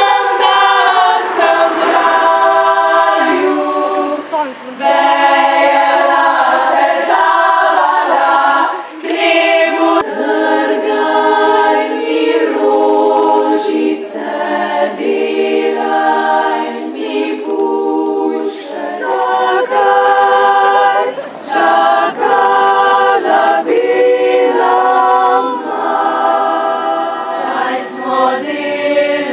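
An a cappella vocal group singing in several parts, with chords of mixed voices held and changing together and a few brief breaks.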